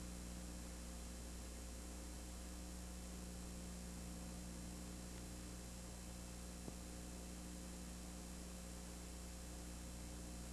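Steady electrical hum with hiss, the noise floor of an old videotape recording carrying no sound of the game, with one faint click about two-thirds of the way through.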